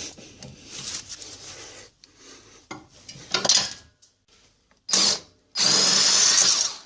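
An impact wrench spinning a hub bolt: a short burst about five seconds in, then a steady whining run lasting about a second near the end. Before it, light scraping and clinking of tools on metal.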